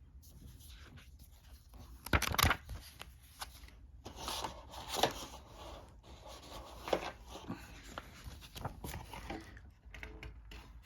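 Paper and cardboard rustling in irregular bursts as a board game's rulebook and box contents are handled, with a few sharper handling knocks.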